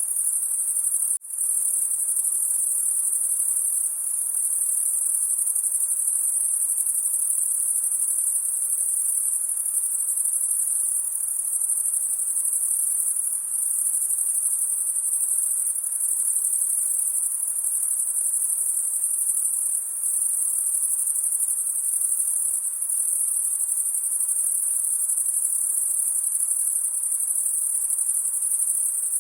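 A dense, steady chorus of crickets trilling high, with one brief dropout about a second in.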